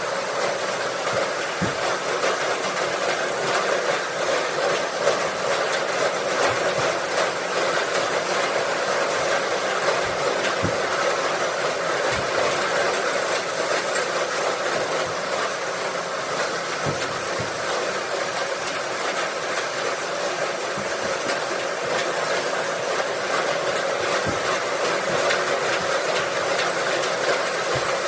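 Farm machinery running steadily, with a constant rattling clatter and occasional light knocks.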